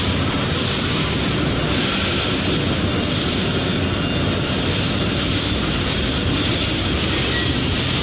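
Industrial roller furnace running: a loud, steady, even roar of machinery with no break or change.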